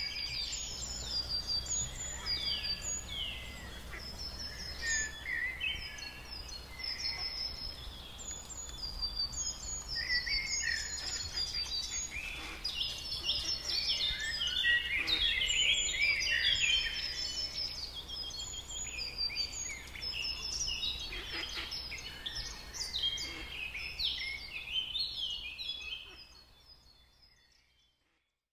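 A chorus of songbirds chirping and singing, many quick high calls overlapping, over a low steady rumble; it fades out near the end.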